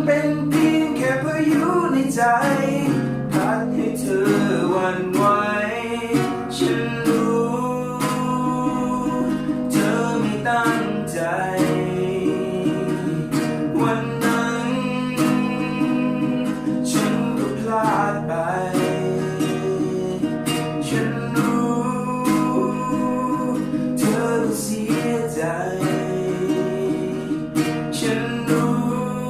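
Acoustic guitar strummed in a steady rhythm, playing an instrumental passage of a Thai pop ballad.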